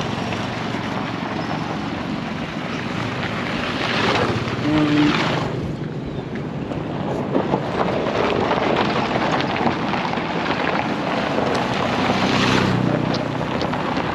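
Wind buffeting the microphone over a steady outdoor rumble, swelling louder twice, with a brief low hum about five seconds in.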